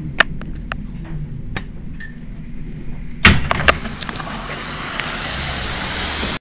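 Stationary Bombardier Flexity Outlook tram with a low steady hum and a few sharp clicks. About three seconds in there is a loud clack, then a steady hiss.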